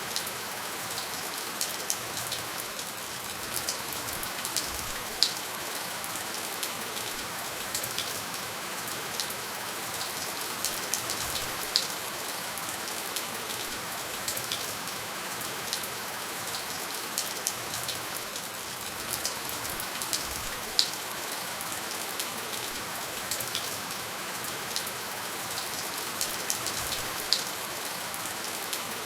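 Steady gentle rainfall, an even hiss with scattered sharp drip ticks, a few louder single drops standing out; no thunder.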